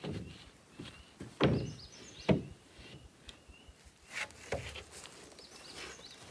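Wooden knocks and thumps as a sheet of OSB is laid down and knocked into place on the wooden deck, two loud knocks less than a second apart early on and a few lighter ones later.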